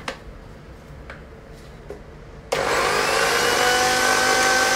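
White countertop electric blender with a plastic jar, switched on about halfway through and running steadily with a whine as it grinds onion, green chili, ginger and garlic into a masala paste. Before it starts there are a few light clicks and knocks as the jar and lid are handled.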